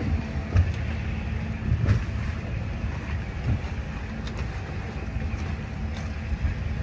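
Twin outboard motors running steadily as the boat moves under way, a low engine hum under water and wind noise, with a few dull knocks.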